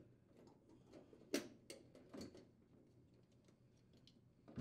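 Faint plastic clicks and light handling as a refrigerator temperature sensor is pulled free of its plastic cover, a few soft ticks between about one and two seconds in, otherwise near silence.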